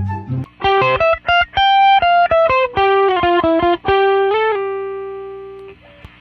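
Electric guitar playing a quick melodic run of single picked notes, ending on one held note that rings and fades, then cuts off abruptly. The tone is lightly processed, as though routed through an effect.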